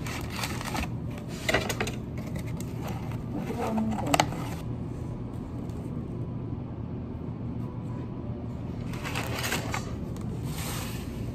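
Handling sounds of cake slices being packed into a molded-pulp takeout box: light knocks and taps, a sharp click about four seconds in, and a stretch of rustling near the end, over a steady low hum.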